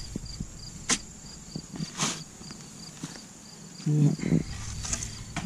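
Crickets chirping in a steady, high, evenly pulsed rhythm of about two chirps a second. A spade scrapes and knocks in the soil a few times, and a short grunt-like voice sound comes about four seconds in.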